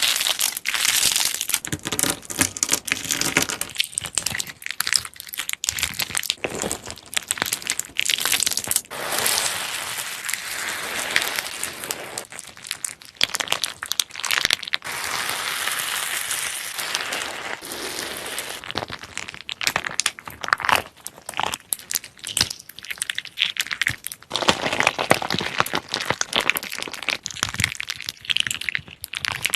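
Hands squeezing and poking slime, giving a dense run of crackling and popping clicks.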